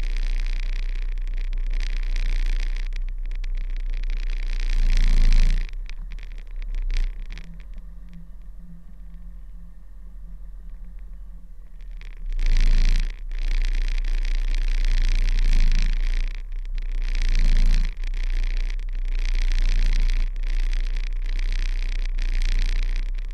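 B-double truck running as it reverses slowly, a steady low rumble under a rushing hiss that swells and fades every few seconds and drops away for a stretch about a third of the way in.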